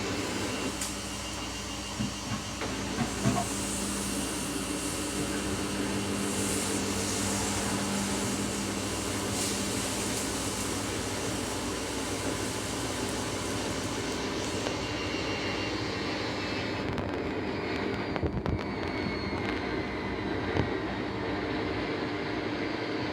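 Samsung washing machine running with a steady mechanical rumble and hum, abnormally loud, the fault being looked at. A few short knocks come about two to three seconds in and again around eighteen seconds.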